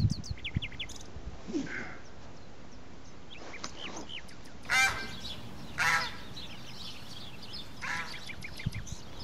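Domestic fowl calling: a few short squawks, the two loudest about a second apart near the middle, with small birds chirping faintly.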